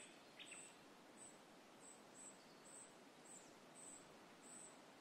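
Faint outdoor ambience: an insect chirping in a short, high-pitched pulse about twice a second, with two quick bird chirps at the start.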